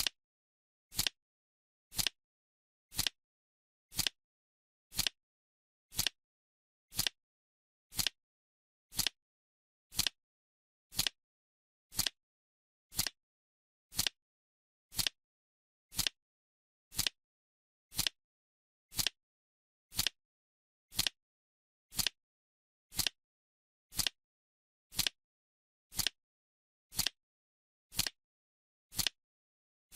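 Clock-style timer ticking, one short sharp tick each second, with silence between the ticks.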